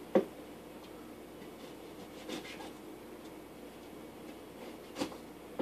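Kitchen knife knocking and scraping while fruit is cut: a sharp knock just after the start, a few soft scrapes about two seconds in, and another knock about five seconds in.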